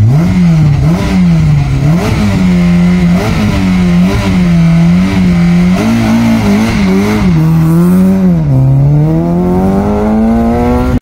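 Citroën Saxo VTS rally car's engine being revved hard and held high, the revs bouncing up and down. Near the end the revs drop and then climb steadily as the car accelerates away.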